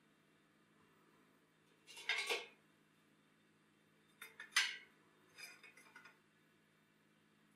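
Parts being handled on a slatted steel workbench: short bouts of metallic clattering and knocking, about two seconds in and about four and a half seconds in, then a lighter rattle around six seconds.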